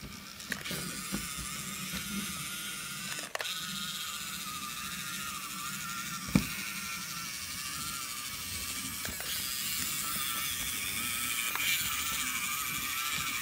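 Small motor and gearbox of a miniature brass tracked tractor whining as its tracks crawl over a pile of tiny bricks and wooden sticks, with scattered clicks and clatter. One sharp knock about six seconds in.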